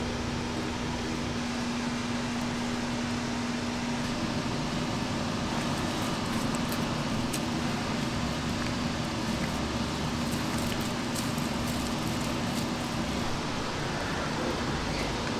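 Steady hum and rush of kitchen ventilation, with a hum tone that fades out near the end. Over it, faint wet squishing and ticking of gloved hands spreading yellow mustard over raw pork shoulders.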